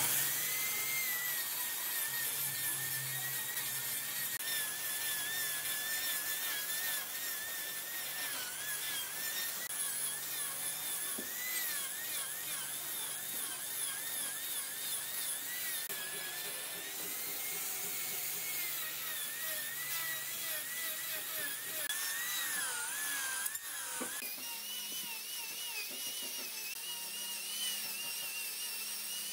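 Electric angle grinder with a toothed wood-carving disc running and shaping pine, a high steady whine that wavers and dips in pitch as the disc bites into the wood.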